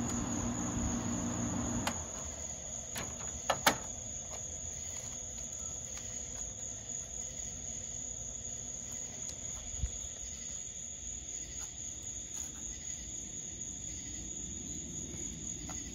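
A 1983 Gibson Slumbermaster window air conditioner, which has a Matsushita rotary compressor, is running with a steady hum that cuts out about two seconds in as the unit is shut off. Two sharp clicks follow about a second later. A steady high-pitched cricket chirr continues underneath.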